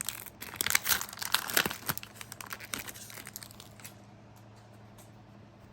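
Crinkling of a plastic trading-card pack wrapper being handled: rapid, irregular crackles that stop about four seconds in.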